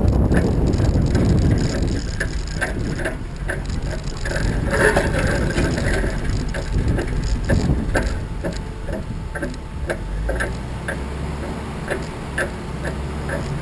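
Regular light mechanical clicking, about two to three clicks a second, over a steady low rumble.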